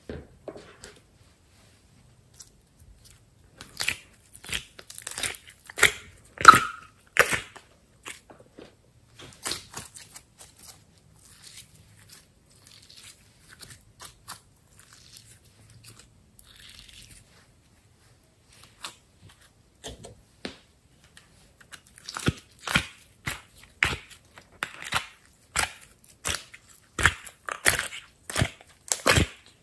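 Slime squeezed and kneaded by hand, giving wet, sticky clicks and pops. They come in busy runs near the start and through the last third, with sparser clicks in the middle.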